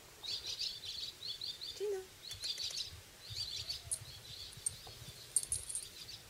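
Wild songbirds singing, a string of short, quick, high-pitched chirping phrases repeating one after another.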